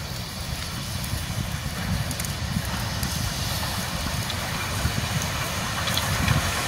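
Steam locomotive hauling passenger coaches rolling past: a steady low rumble and hiss, slowly getting louder.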